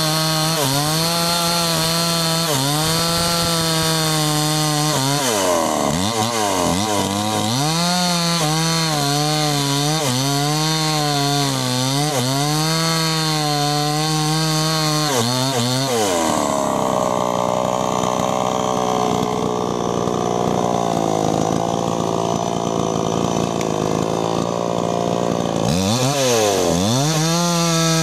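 New West 628 two-stroke chainsaw cutting into the base of a standing sengon trunk, its engine note dipping and climbing again and again as the chain bites and the saw is worked in the cut. Through the middle it holds a steadier note, then dips once more and picks back up near the end.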